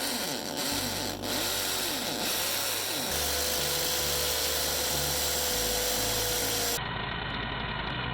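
Hammer drill running a 1-inch masonry bit, boring into brick. A continuous grinding drill noise whose pitch and load shift in steps, turning abruptly duller near the end.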